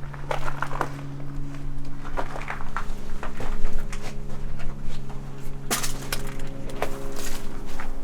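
Footsteps crunching and clinking over debris on the ground, over background music of long held low notes that change about three and a half and six seconds in.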